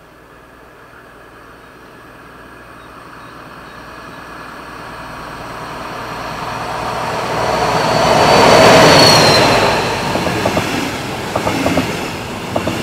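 DB class 218 diesel-hydraulic locomotive approaching and passing close by with a train of double-deck coaches. Its sound swells steadily to a peak about nine seconds in, with a high whine that falls in pitch as it goes by, then the coaches' wheels click over the rail joints near the end.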